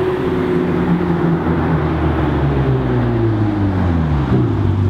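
Ferrari sports car's engine approaching and slowing down, its note falling steadily in pitch as it eases off.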